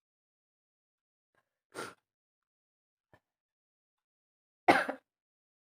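A woman with a heavy head cold making two short, breathy bursts through her nose, the second about three seconds after the first and louder.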